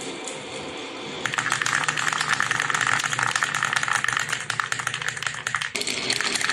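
Marbles rolling and clattering down a wooden HABA marble run, a dense rapid clicking that starts about a second in and changes abruptly near the end.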